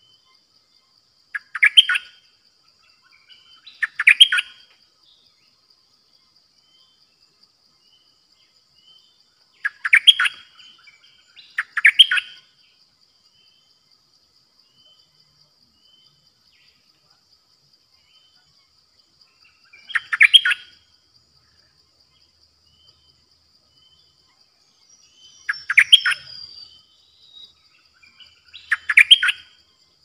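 Caged decoy bulbul (nok dok taeng) singing short, loud song phrases, seven of them a few seconds apart, over a steady high insect trill.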